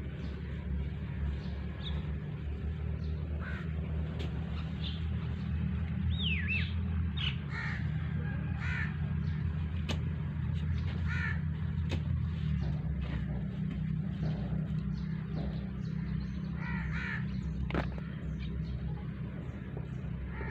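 Birds calling again and again in short calls, one of them a falling whistle about six seconds in, over a steady low drone.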